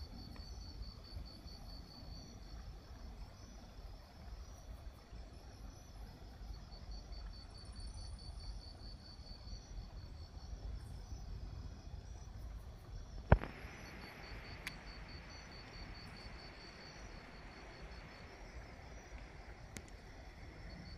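An insect chirping in repeated high trills of rapid pulses, each lasting a second or two, over a low steady rumble. A single sharp click about thirteen seconds in is the loudest sound.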